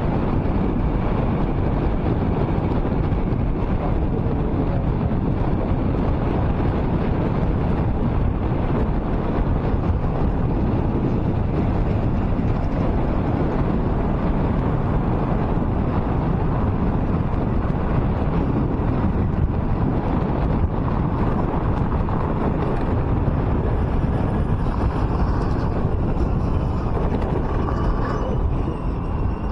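Steady road and wind noise from a car driving along a highway, with wind buffeting the microphone.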